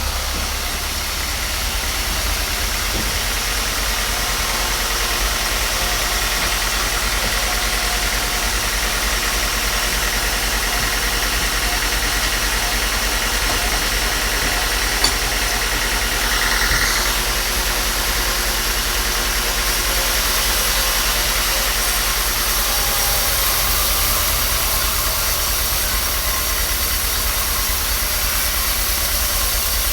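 A machine's motor running steadily, with one sharp click about halfway through.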